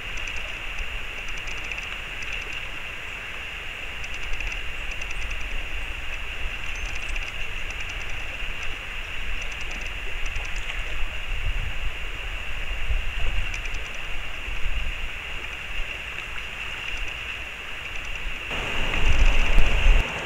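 Steady rush of flowing stream water, with uneven low rumbling from wind on the microphone. It turns louder and fuller about eighteen seconds in.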